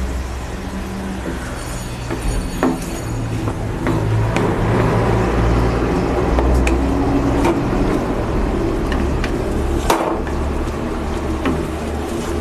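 A wooden spatula stirring and scraping potato chunks in wet spice paste in a metal kadai, with a few sharp knocks against the pan, the loudest about ten seconds in. The wet masala sizzles, louder in the middle, over a steady low hum.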